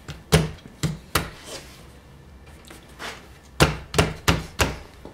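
A wooden plate being knocked down onto a jigsaw with the palm of the hand: sharp wooden knocks, three in the first second and a half, then after a pause a quicker run of about five. The tight-fitting plate is being driven on until it meets the blade.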